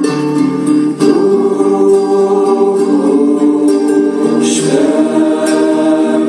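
Music: held singing voices over a plucked-string accompaniment, with a new chord coming in about a second in.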